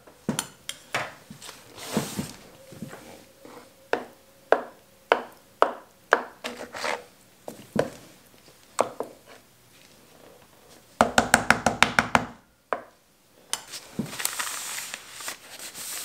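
A metal spoon working thick soap batter in a paper-lined wooden mold: soft knocks and scrapes about two a second, then a quick run of rapid taps about eleven seconds in, and a brief rustle near the end.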